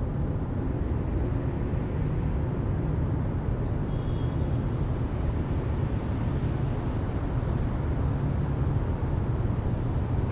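City street ambience: a steady low rumble of traffic, with a brief high tone about four seconds in.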